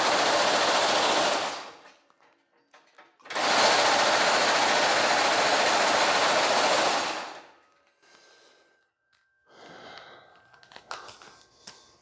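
Reciprocating hammer running, its dies rapidly striking woven stainless steel mesh fed through by hand to raise a subtle center section in the grille. It runs for about a second and a half, stops, then runs again for about four seconds before stopping, and a few light clicks follow near the end.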